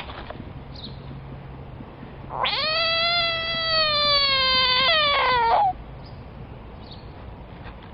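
A frog's distress scream when threatened: one pitched cry about three seconds long, starting about two and a half seconds in, sliding slightly down in pitch, with a break just before it stops.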